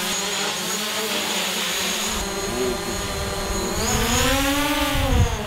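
DJI Mavic quadcopter drone's propellers whining in flight. The whine holds steady at first, then its pitch wavers, rises and falls again as the drone manoeuvres.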